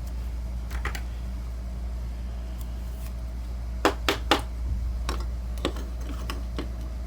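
Hockey trading cards being handled: a few light clicks about a second in, then three sharp taps about four seconds in and scattered softer ones after, over a steady low hum.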